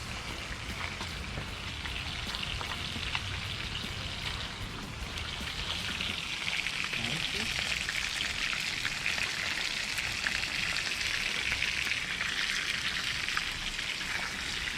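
Carp frying in hot oil in a pan, a steady sizzle with fine crackles that grows louder about six seconds in.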